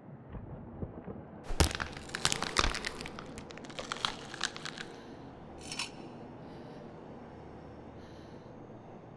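Dense crunching and cracking of rock and gravel, starting about a second and a half in and lasting about three seconds, with one more short crunch just before the six-second mark, over a steady low cave ambience.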